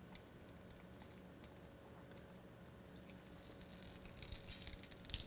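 Butter foaming on a hot flat-top griddle, a faint sizzle with scattered small crackles and ticks that grow a little louder near the end.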